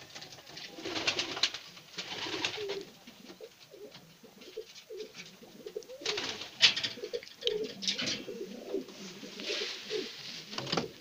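Domestic pigeons cooing, many short low coos overlapping. A few brief scratchy noises come in between, the loudest about two-thirds of the way through.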